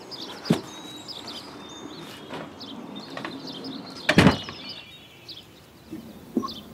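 A front door being pulled shut with a loud thud about four seconds in, after a sharper knock about half a second in, while small birds chirp throughout.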